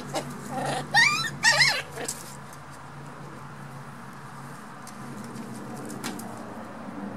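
Toy poodle puppies yelping in play: two short, high-pitched, wavering yelps about a second in, over a low steady hum.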